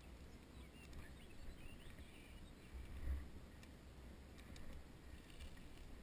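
Quiet outdoor ambience: an uneven low wind rumble on the microphone, swelling about three seconds in, with a few faint high chirps and light clicks.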